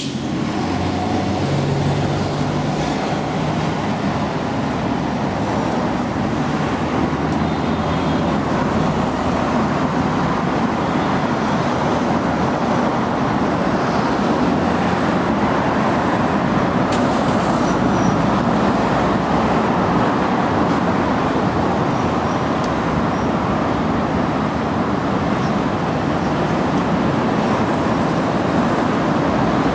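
Steady road traffic noise of a busy city street, an even hum of passing vehicles.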